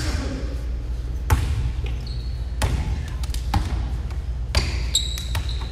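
Basketball bouncing on a hardwood gym floor: single, irregularly spaced thuds with a short echo, about one a second. Two brief high squeaks, about two seconds in and near the end.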